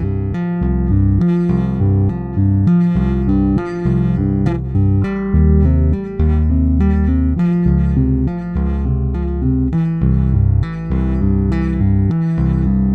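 Two overdubbed electric bass tracks, one of them a vintage '51 Precision Bass, playing a two-handed tapping piece: tapped and pulled-off notes and double stops in a steady rhythm over a low bass line.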